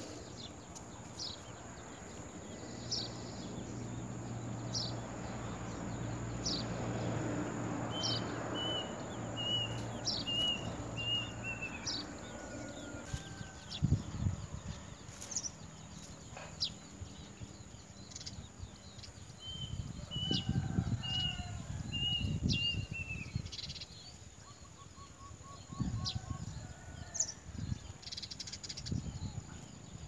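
Small songbird calling at its nest: sharp, short downward chips repeated about once a second, with two brief runs of about six quick notes, one before the middle and one past it. Low rumbles in the second half.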